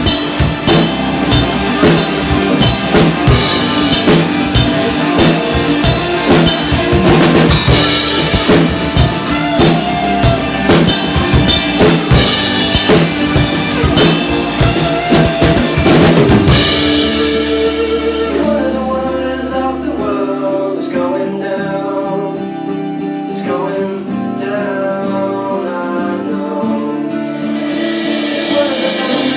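Music: a full band with a busy drum kit, whose drums drop out about halfway through, leaving a quieter melodic passage of sustained notes.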